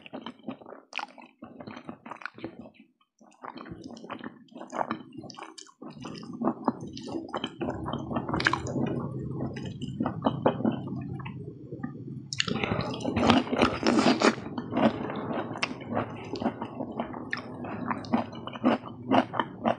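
Close-miked eating: a mouthful of noodles being chewed, with many short irregular mouth clicks and crackles, louder for a couple of seconds about two-thirds of the way through.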